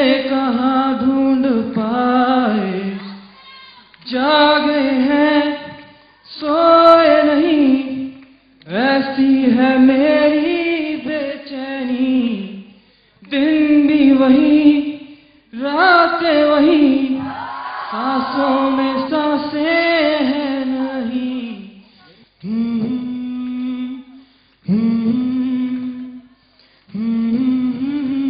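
A man singing unaccompanied into a microphone, in long held phrases that waver and slide in pitch, with short breaks between them.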